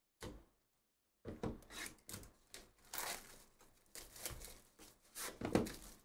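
Clear plastic shrink wrap being torn and stripped off a trading-card hobby box, crinkling and rasping. One short rip comes first, then a second later a continuous run of tearing and crinkling with several louder rips.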